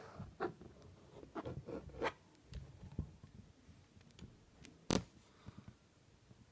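Scattered small clicks and scrapes from a plastic Lego Technic car being handled, with one sharper click about five seconds in.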